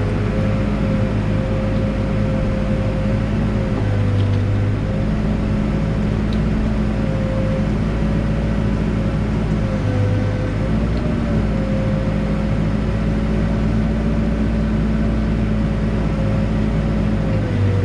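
Backhoe diesel engine running steadily under digging load, with a steady whine that shifts slightly in pitch about ten seconds in.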